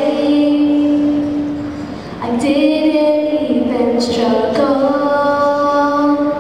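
A young girl singing solo into a handheld microphone, holding long sustained notes. Her phrases break briefly about two seconds in and again about four and a half seconds in.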